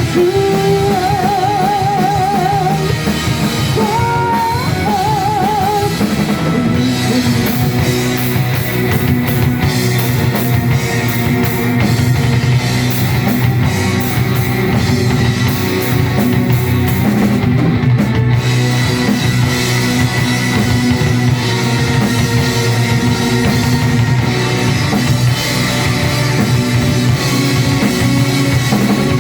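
Live rock band playing: drum kit and electric guitars, with a high lead line wavering in pitch over the first six seconds or so.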